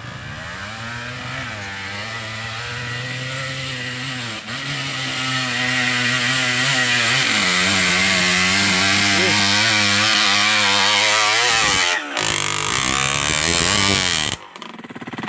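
Dirt bike engine revving hard as the bike climbs a muddy uphill trail, growing louder as it nears and holding high revs with the rear tyre spinning and digging into the mud. The engine note dips briefly near the end, then the sound stops just before the end.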